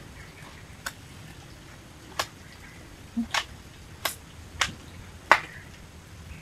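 A .22 air rifle being handled and worked between shots: a run of about seven sharp, irregularly spaced clicks, the last the loudest.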